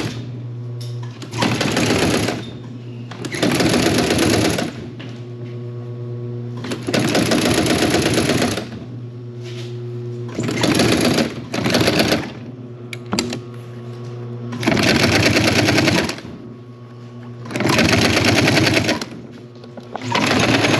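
Industrial sewing machine stitching rubber strip onto a webbing sling. It runs in about eight short bursts of one to two seconds of rapid needle strokes, with the motor humming steadily between bursts.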